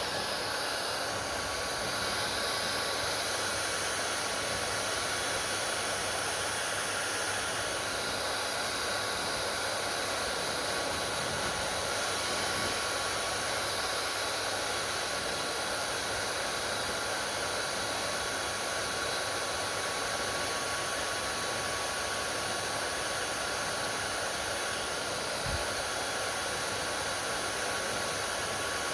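Hair dryer blowing steadily, an even rushing hiss with a faint steady whine, broken only by a small knock near the end.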